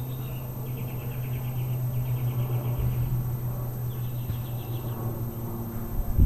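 A steady low machine hum, with three short, high, fast trills over it about a second apart and a single loud thump near the end.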